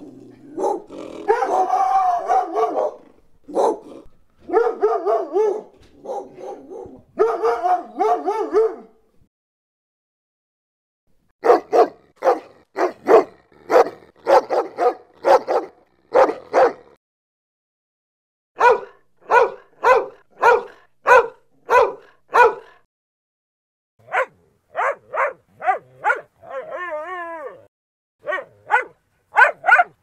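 Dog barking in several runs of quick repeated barks, about two a second, broken by short silent pauses. Near the end comes a brief wavering howl.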